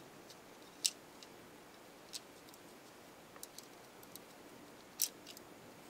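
A handful of small, sharp clicks of plastic and metal parts handled in the fingers as microphones are fitted into a camcorder's plastic front cover ring, the two loudest about a second in and about five seconds in.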